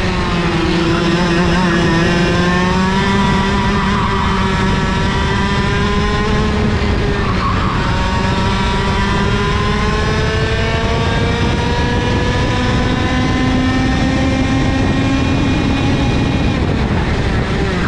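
IAME KA100 100cc two-stroke kart engine at racing speed, heard from on board. Its pitch climbs steadily along the straights and drops briefly about halfway and again near the end as the revs come down.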